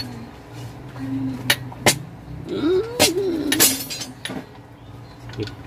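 Sharp metal clicks and clinks of a guide fence being fitted and clamped onto a Hikoki electric planer, with the planer's motor off. A short wavering voice-like hum comes about three seconds in, between the clicks.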